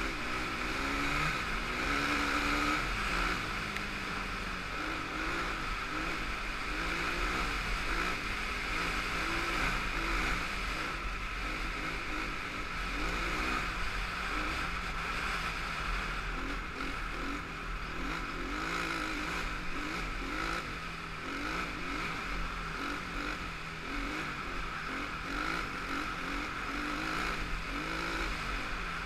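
Honda TRX450R quad's single-cylinder four-stroke engine running as it is ridden along a dirt track, its pitch rising and falling over and over with the throttle.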